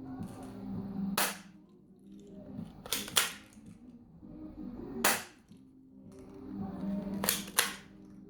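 A toy pistol firing a series of sharp cracks at a target: one about a second in, a quick pair near three seconds, one about halfway, and another quick pair near the end.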